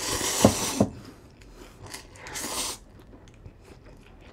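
Instant ramen noodles slurped loudly off chopsticks, with two wet pops near the end of the first slurp. A second, shorter and softer slurp comes about two seconds in, followed by small wet mouth clicks of chewing.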